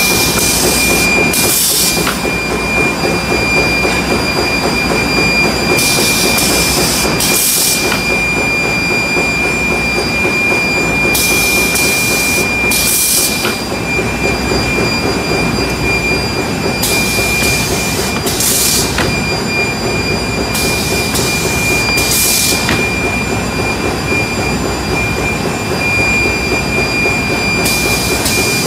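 Diaper production line machinery running steadily, with a constant high whine over a low rumble. Pairs of short hisses come about every five seconds.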